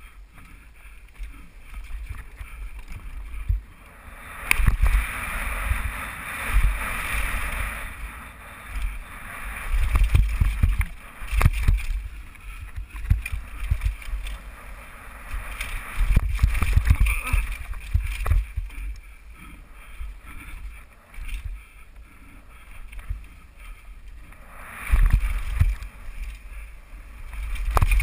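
Wind buffeting a helmet-mounted camera's microphone, mixed with a downhill mountain bike rattling and its tyres rumbling over dirt, wooden ramps and rock. The noise surges and fades with speed, with a few sharp knocks from hard impacts.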